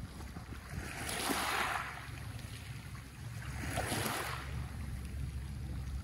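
Small sea waves washing up a pebble beach: two swelling, hissing washes a few seconds apart over a low steady rumble.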